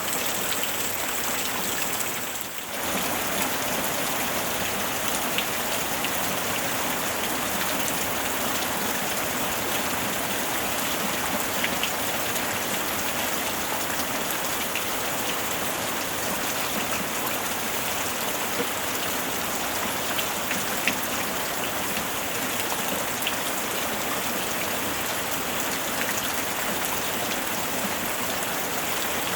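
Steady rain falling, an even hiss with scattered drop ticks; it dips briefly about two and a half seconds in.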